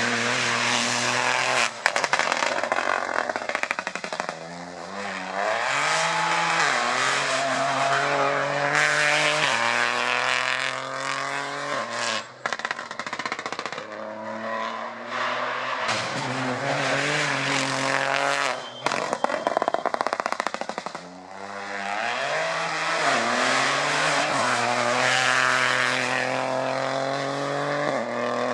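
Rally cars at full throttle on a special stage, engines revving up through the gears again and again, with the note breaking at each shift. A few sharp cracks break in along the way.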